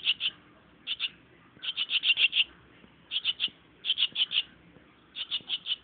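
A young swallow giving shrill begging chirps with its beak gaping. The chirps come in quick bursts of two to seven, about six bursts, with short pauses between them.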